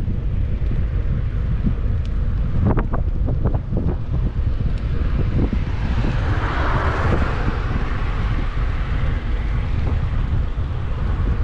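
Wind buffeting the microphone of a bicycle-mounted camera while riding, over a steady low rumble, with a few knocks and rattles from the road a few seconds in. About six seconds in, a car's tyre hiss swells and fades as it passes.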